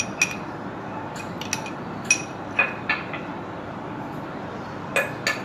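A metal spoon clinking and scraping against a small glass bowl as soaked poppy seeds are scraped out: about seven short, ringing clinks spaced irregularly, two of them near the end.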